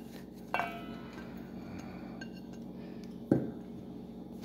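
Kitchenware knocks: a short ringing clink of a plate against a steel mixing bowl about half a second in, then a sharper knock a little after three seconds in, over a steady low hum.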